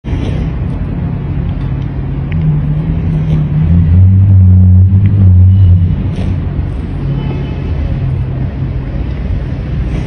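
Loud background music with a deep bass line, its low notes held and changing in steps, loudest about four to six seconds in.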